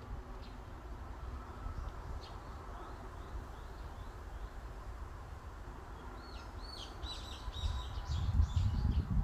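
Forest ambience: small birds chirping, with a quick run of repeated high chirps in the last few seconds, over a low wind rumble that grows much louder near the end.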